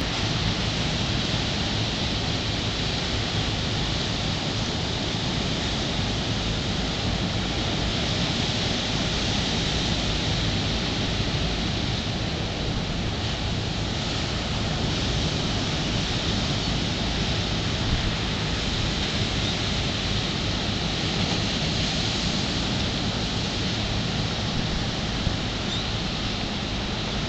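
Ocean surf breaking and washing up the beach: a steady, unbroken wash of noise with a low rumble under it.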